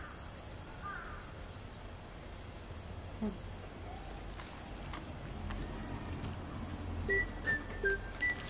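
Insects chirping in a steady, evenly pulsing high trill over a low background rumble. A few short clear notes come in near the end.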